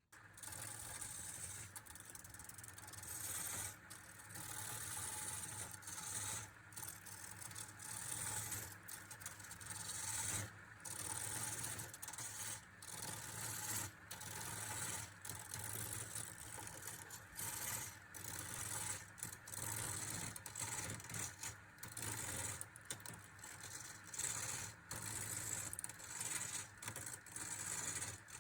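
Wood lathe turning a workpiece while a turning tool scrapes and cuts the spinning wood. It makes a steady hiss broken by many brief gaps, over a low steady motor hum.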